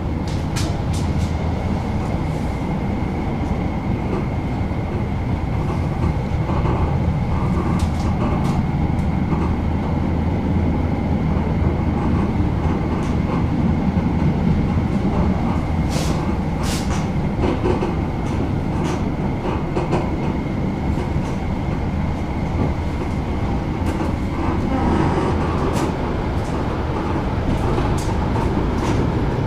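Tram running along the track, heard from inside the car: a steady rumble with a high whine that fades out near the end, and scattered sharp clicks and rattles.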